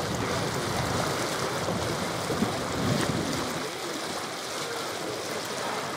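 Tour riverboat under way: a steady wash of water along the hull over a low rumble, easing a little past halfway.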